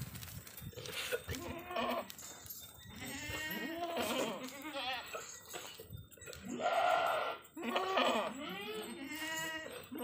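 A herd of goats bleating, many calls overlapping one another, with the loudest bleats a little past the middle.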